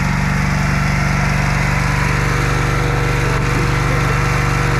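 Wood splitter's engine running steadily at a constant speed.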